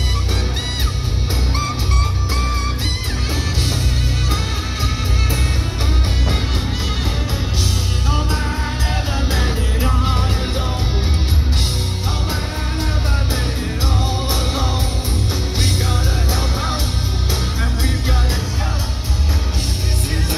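Live rock band playing with a male lead singer singing into a microphone, the bass very heavy.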